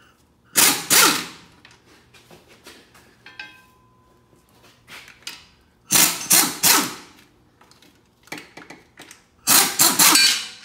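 Pneumatic air ratchet with a swivel socket running out the three 15 mm bolts that hold a GM transfer case encoder motor. There are three bursts of about a second each, every one made of a few short trigger pulls, with small metal clicks in between.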